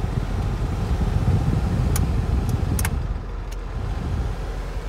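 Ashok Leyland 1612 truck's diesel engine idling, heard as a steady low rumble inside the cab, with a few sharp clicks about two to three and a half seconds in.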